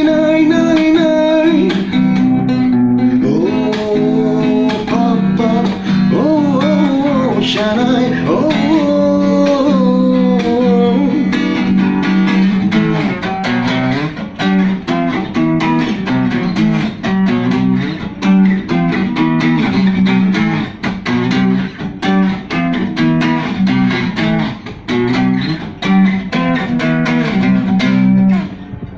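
A male voice singing a wordless, drawn-out melodic line over strummed guitar chords for about the first ten seconds, then the guitar playing on alone in a steady strumming rhythm.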